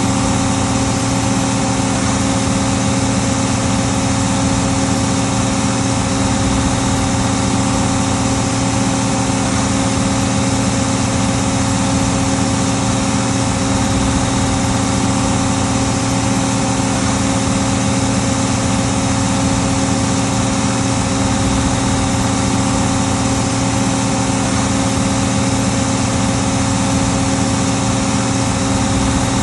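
Case 1570 tractor's diesel engine running steadily under load while pulling a five-bottom plow, an even drone with no change in speed.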